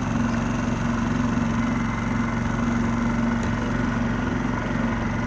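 Small outboard motor on an inflatable dinghy running steadily at a constant speed, an even droning hum.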